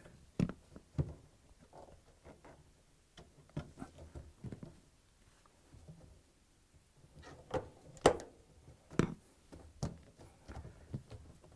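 Scattered light clicks and knocks of hand tools and a spring-loaded wire clamp against a washer's front panel as the door boot seal's outer clamp is worked into its groove, with a sharper knock about eight seconds in.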